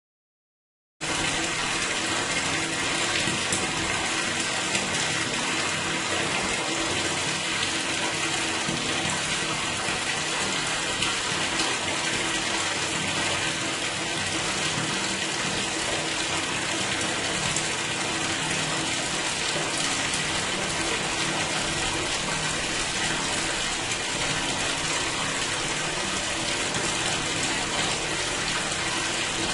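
Water rushing and splashing steadily in a sewer, starting suddenly about a second in and then running on evenly without a break.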